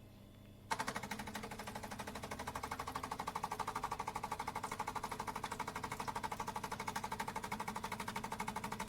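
Tassimo Bosch Vivy 2 pod coffee machine's water pump running, a rapid, even pulsing that starts about a second in and keeps going.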